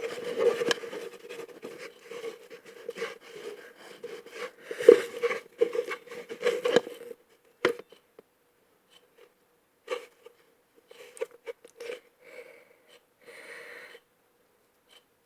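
Sticky homemade slime being mixed and kneaded by hand, wet squishing and crackling for about seven seconds, then only scattered soft squishes and clicks.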